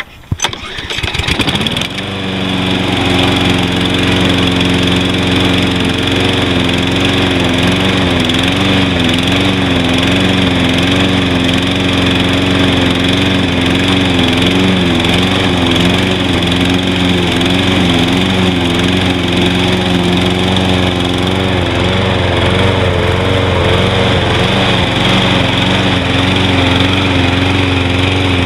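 Cold start of a Toro Recycler walk-behind mower's 190 cc Briggs & Stratton engine, after two months unused: it fires and catches about a second in. It then runs at a steady speed, though the speed wavers up and down through the middle before settling.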